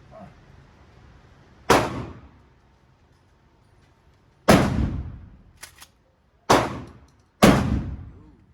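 Four rifle shots from a 7.62x51 rifle, the first alone and the other three closer together near the end, each with a ringing echo that dies away.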